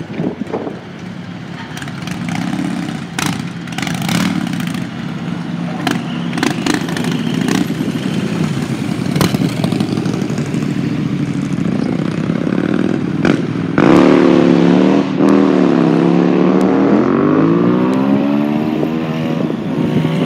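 A Ford hyrail pickup truck running on rail wheels along the track, its engine growing louder as it approaches and passes close by. Several sharp clacks sound in the first half. Near the end the engine note is loudest and wavers up and down in pitch.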